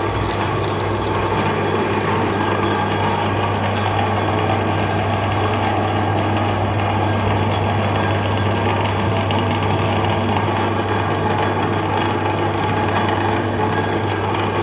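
Meat grinder's motor running steadily with a constant low hum under a rough, even grinding noise.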